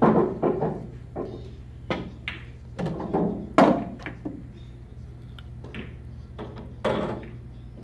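Pool balls being struck with a cue and clacking together on a pool table, with several sharp knocks and dull thunks as the balls hit and settle.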